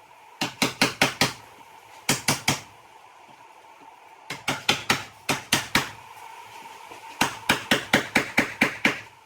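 Rapid sharp blows, about six a second, struck in four bursts of four to ten strokes each, over a faint steady hum.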